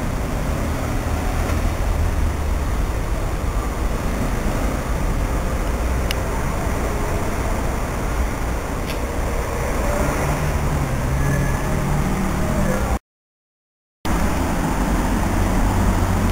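Steady low outdoor rumble at an open railway platform, with wind buffeting the microphone. The sound cuts out to dead silence for about a second near the end.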